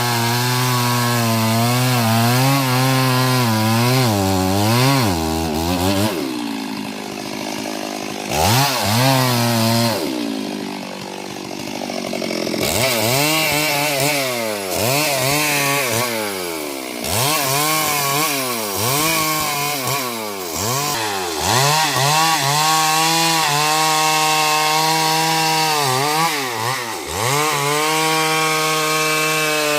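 Stihl MS 382 two-stroke chainsaw cutting wood, its engine pitch dipping and rising again and again as the chain bites and the throttle is worked. The saw sounds weaker and less steady for several seconds about a quarter of the way through, then the repeated revving returns.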